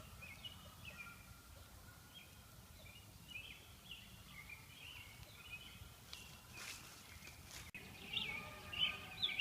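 Small birds chirping faintly over a low outdoor background hiss, the chirps getting busier near the end, with a brief rush of noise about six and a half seconds in.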